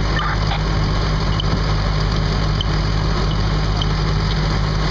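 A motor engine running steadily with a low hum. A faint, short, high chirp repeats about once a second over it.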